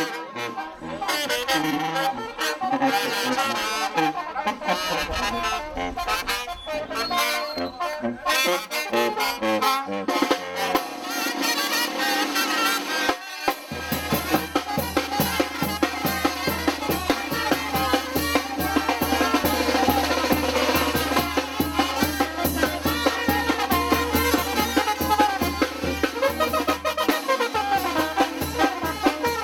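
Street brass band playing: trumpets and other brass over a sousaphone, a snare drum and a bass drum with cymbals. About halfway through, a steady deep bass line comes in.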